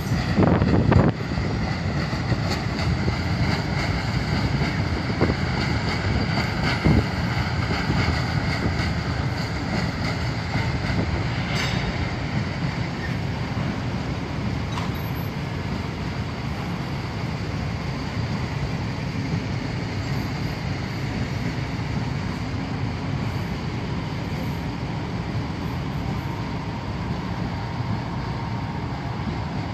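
Trains rolling through the station with a steady low rumble. A freight train of open wagons passes on a far track in the first dozen seconds, with faint metallic wheel ringing and a few clicks. A Plasser & Theurer 08-275 Unimat 3S track-tamping machine then moves past close along the platform, its engine and wheels making a steady rumble.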